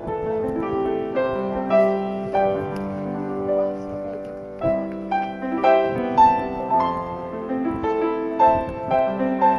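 Piano music: a slow melody of held notes over chords.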